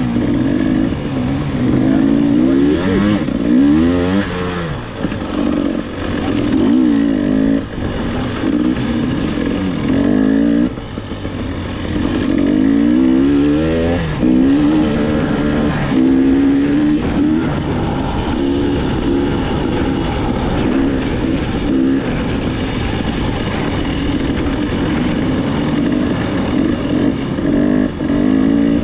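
KTM 300 two-stroke dirt bike engine being ridden on a trail, its pitch rising and falling over and over as the throttle is opened and closed.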